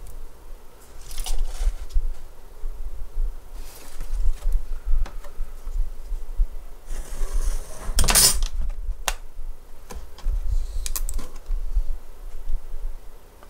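Handling noise of small tools and parts on a wooden desk: scattered light clicks and knocks. About seven seconds in, a longer scraping, rustling stroke, the loudest sound, as a snap-off utility knife is drawn along a steel ruler through white card.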